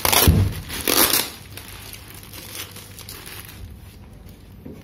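Black plastic bag wrapped around a parcel crinkling as it is handled, loudest in the first second or so, then much quieter.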